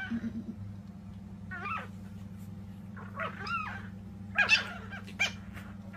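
Chihuahua puppies play-fighting, giving a handful of short, high-pitched squeaky cries that waver up and down in pitch.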